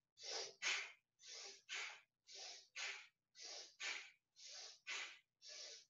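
Bhastrika (bellows) breathing: quick, forceful breaths in and out through the nose, driven by the belly. The breaths come in even pairs, one in and one out about every second, six pairs in all.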